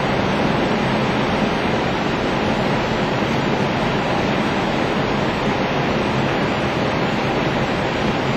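Steady rushing airflow and engine noise inside an Airbus A320 flight deck on final approach, an even hiss with no breaks.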